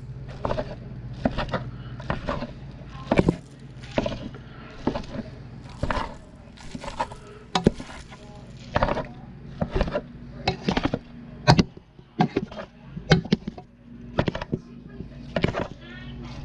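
A meat chopper tool jabbing and scraping through raw ground beef against the bottom of a cooking pot, an irregular series of knocks about one or two a second, over a steady low hum.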